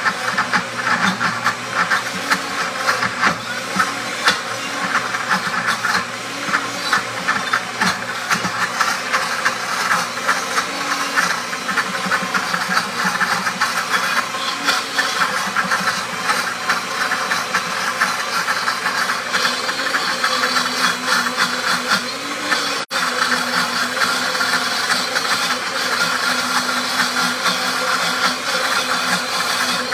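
Pampered Chef Deluxe blender motor running on its grind setting, grinding peanuts into peanut butter: a steady whir with a busy rattling churn, its pitch wavering slightly as the thick nut paste loads the blades. It breaks off for an instant about 23 seconds in, then carries on.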